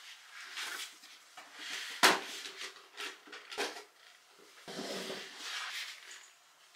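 Rustling and crinkling of a bag and packaging being handled by hand as a white wipe is pulled out, in several irregular bursts, with one sharp click about two seconds in that is the loudest sound.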